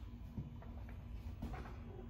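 Quiet room tone of a museum gallery: a low steady hum with a couple of faint, brief sounds.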